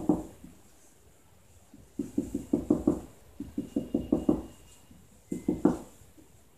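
Marker pen on a whiteboard: one sharp knock as the pen meets the board, then three runs of quick short taps, several a second, as hatching strokes are drawn.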